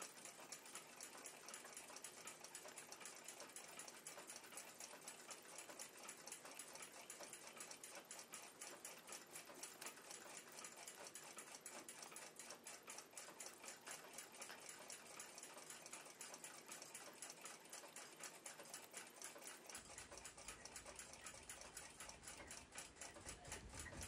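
Faint, steady, rapid ticking of clockwork, evenly spaced throughout.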